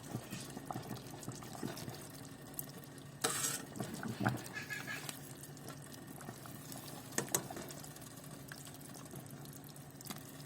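Kitchen cooking sounds: a low steady hum under scattered clicks and knocks of utensils, with a short splash of water about three seconds in.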